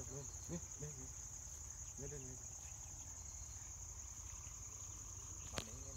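Insects shrilling steadily in a high, even drone, with faint low human voices in the first couple of seconds and one sharp click shortly before the end.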